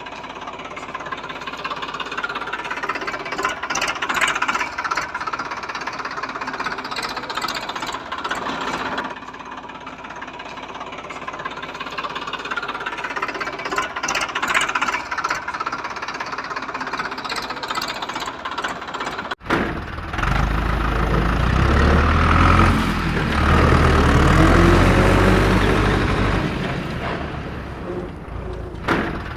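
Vehicle engine running with a rough, knocking sound that swells every few seconds. About two-thirds of the way through it cuts abruptly to a louder, deeper engine whose pitch rises and falls.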